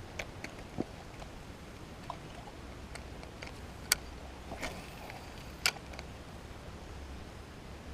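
A handful of short sharp clicks and taps, the two loudest about four seconds and nearly six seconds in, over a low steady rumble.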